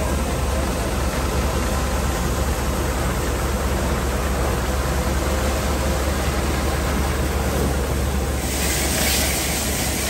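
Tractor-driven corn thresher running steadily under load: a constant low drone beneath a dense rushing noise of the threshing drum, with a brief brighter hiss near the end.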